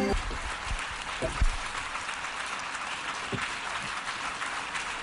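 Music cuts off at the start, giving way to a conference-hall audience applauding steadily, with a few low thumps about a second and a half in and again past three seconds.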